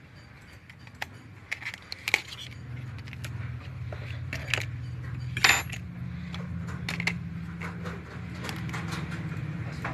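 Small metal tools and phone parts clicking and tapping on a repair bench as a mobile phone is taken apart: a handful of sharp, light clicks, with a steady low hum underneath from about three seconds in.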